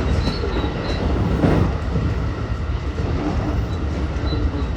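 JR West 223 series 2000 electric train running at speed, heard from inside the car: a steady rumble of wheels on rail and running gear, with a brief louder swoosh about a second and a half in.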